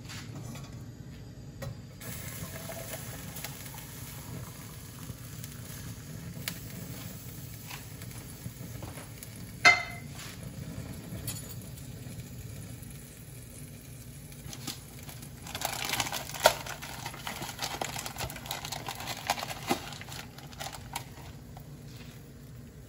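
Stovetop Moroccan-tea making: lit gas burners under a saucepan and a metal teapot give a steady low hum, with light handling of the cookware. One sharp metallic clink rings out about ten seconds in, and a few seconds of louder hissing noise follow past the middle.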